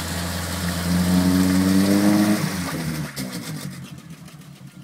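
Car engine revving, its pitch climbing for about a second and a half, then dropping back and fading away near the end.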